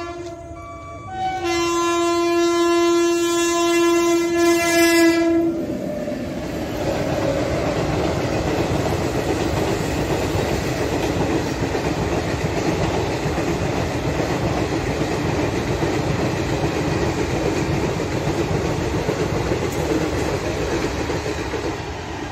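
Indian Railways passenger train sounding its locomotive horn: a short note, a brief break, then a long blast of about four seconds. The coaches then roll past with a steady rumble and rattle of wheels on the rails.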